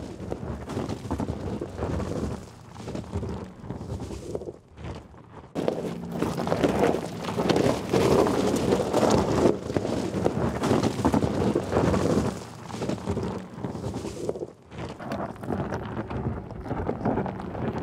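Tyres of a Mercedes-Benz G 580 electric G-Class crunching over loose stones and gravel as it crawls down a rocky trail. The noise is rough and crackly, dips briefly about five seconds in, then comes back louder.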